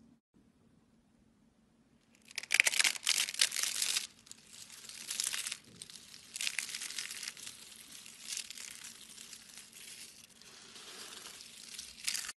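A hand crushing and crumbling a pile of thin, dry yellow flakes: crisp crackling starts about two seconds in, is loudest at first, then comes in repeated waves as the handful is squeezed again.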